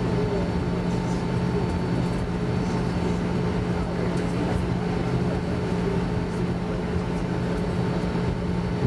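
Airbus A320 cabin noise while taxiing, heard from a seat over the wing: the jet engines at idle and the cabin air make a steady hum with a faint high whine.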